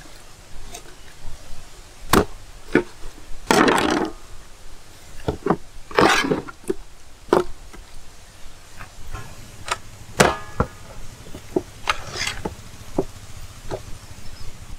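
A large knife chopping raw whole chickens on a wooden cutting board: irregular sharp knocks, a second or more apart, with a few longer scraping, handling noises between them.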